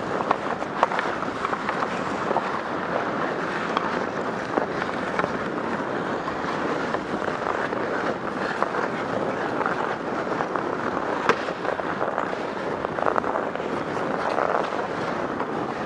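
Hockey skate blades scraping and gliding on ice in a steady rough hiss, with scattered sharp clicks.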